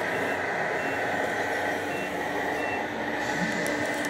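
Steady mechanical running noise of radio-controlled model trucks in a hall, with a truck's reversing beeper sounding short high beeps about once a second.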